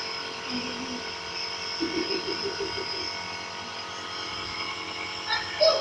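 A compressor nebulizer running with a steady hum during a baby's treatment for a cough. About two seconds in, the baby makes a quick run of short croaky grunts, and near the end there is a brief louder sound.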